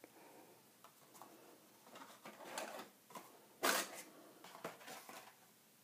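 Packaging and craft tools being handled: scattered rustling with light clicks and knocks. The loudest is a short, sharp rustle or knock a little under four seconds in.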